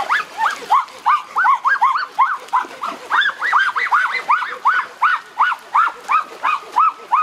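An animal crying over and over in quick, short high cries, each rising and falling in pitch, about three or four a second without a break.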